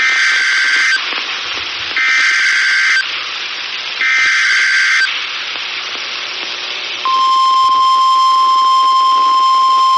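Emergency Alert System SAME header: three one-second bursts of screeching digital data tones, a second apart, with radio hiss between them. About two seconds after the last burst the steady 1050 Hz NOAA Weather Radio warning alarm tone starts and holds. The sequence signals that a new severe weather warning follows.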